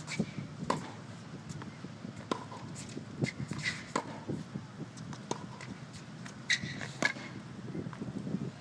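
Tennis balls being struck by rackets and bouncing on a hard court during a rally: a string of sharp pocks every second or so.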